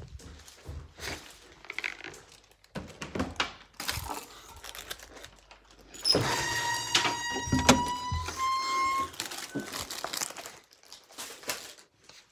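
Rustling, crinkling and knocks as a foil-wrapped advent calendar is carried and handled. In the middle comes a high creaking squeal, about three seconds long, that rises slightly at its end.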